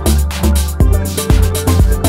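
Electronic background music with a steady beat, about two thumps a second.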